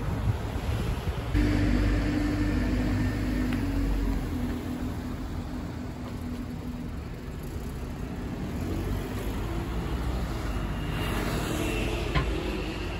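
Cars driving past close by at low speed: steady engine hum with tyre and road noise.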